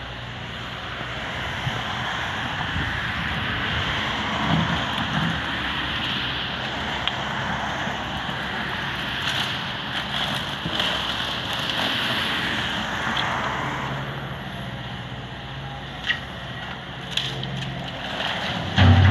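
John Deere 130G excavator working a pile of demolition debris: its diesel engine runs steadily under continuous crunching and crackling of broken wood and rubble. Two sharp knocks come near the end, and a louder low engine surge at the very end.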